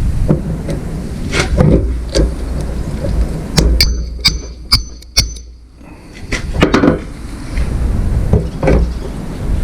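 Metal parts of a hydraulic cylinder knocking and clinking as it is put back together, with a run of sharp, ringing clinks about four to five seconds in, over a steady low rumble.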